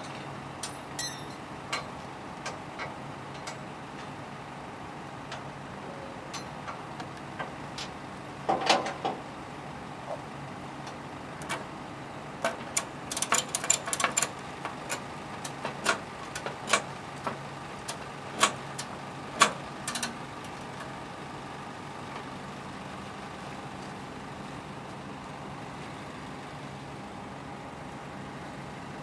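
Flatbed tow truck's engine idling steadily, with a scatter of sharp metallic clicks and knocks between about 8 and 20 seconds in, some in quick runs.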